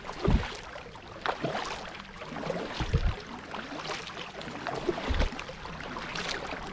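Kayak paddling: a double-bladed paddle dipping and splashing into calm water on alternate sides, about one stroke a second, with water dripping off the blades and a few dull low thumps.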